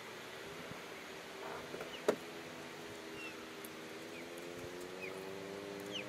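Small engines of a 50cc youth dirt bike and a child's quad running in the distance, a steady drone that rises gradually in pitch as they come closer. A single sharp click about two seconds in.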